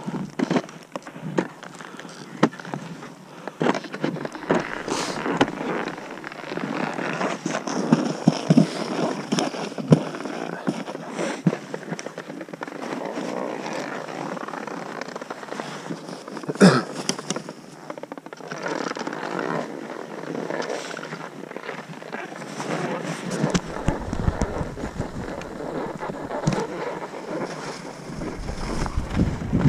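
Skis scraping and crunching over snow, with sharp clicks and knocks of ski poles planting as the skier pushes along. Near the end, wind starts buffeting the microphone as the skier picks up speed downhill.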